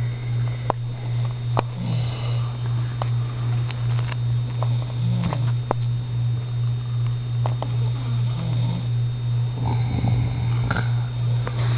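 A person snoring, with a breath about every three seconds, over a loud steady low hum and scattered faint clicks.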